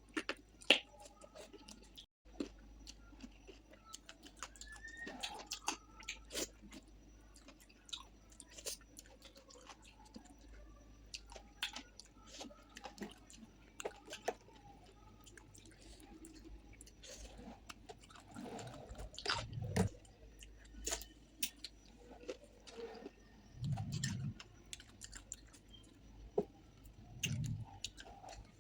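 A person chewing a mouthful of rice and fish curry, with many short, wet mouth and lip clicks. A few louder, deeper chews come in the last third.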